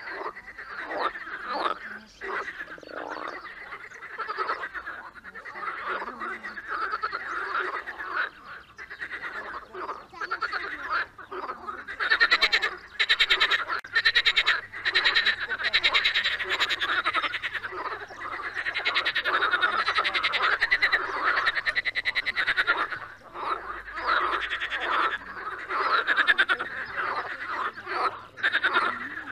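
A chorus of many frogs croaking, dense overlapping rapid pulsing calls, getting louder about twelve seconds in.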